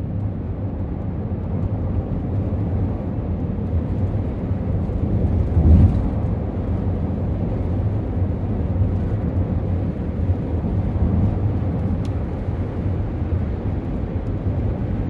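Steady low rumble of road and engine noise inside a moving minivan's cabin, with one brief louder bump about six seconds in.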